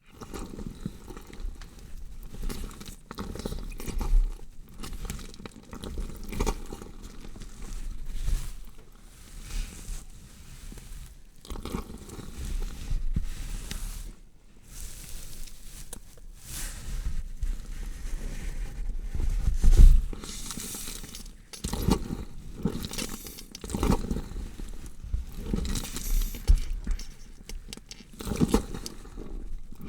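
Gory horror foley meant as a body being dissected: a continuous, irregular run of wet tearing, squishing and crunching, with scattered short thuds and one louder hit about two-thirds of the way through.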